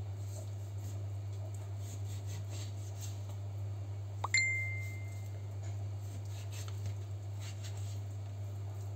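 Quiet knife and hand sounds of a raw rack of lamb being cut apart on a plastic cutting board, over a steady low hum. About four seconds in, a single bright ding rings for about a second.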